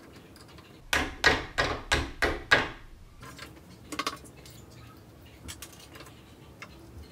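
A quick run of six sharp metal knocks, about three a second, as a stepper motor is worked into its aluminium mount, then one more knock and a few faint clicks.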